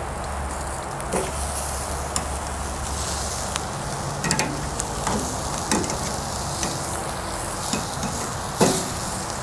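Lamb shoulder chops sizzling as they sear on a charcoal grill grate, a steady frying hiss. Metal tongs click and scrape against the steel grate a handful of times as the chops are moved.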